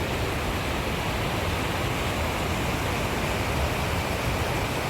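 Fast mountain creek rushing steadily, a continuous noise of water.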